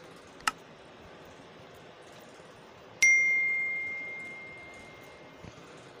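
A short click, then about three seconds in a single bright bell-like ding that rings on and fades away over about two seconds: the mouse-click and notification-bell sound effect of a subscribe-button animation.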